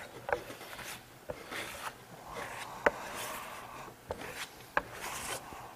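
Hand trowel scraping and spreading Venetian lime plaster across a board, with a rubbing hiss that swells in the middle. Short sharp creaks and knocks come at irregular moments from the worn easel holding the board, which is creaking under the trowel's pressure.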